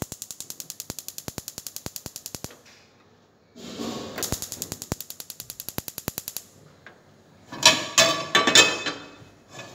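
Gas stove's spark igniter clicking rapidly, about a dozen clicks a second, in two runs of about three seconds as a burner is lit. About seven and a half seconds in, a metal frying pan clatters onto the stove grate with a ringing.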